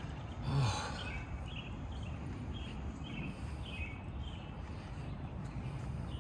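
Footsteps of a person walking on pavement, about two steps a second, over a low outdoor rumble, with a short voiced sigh from the walker about half a second in.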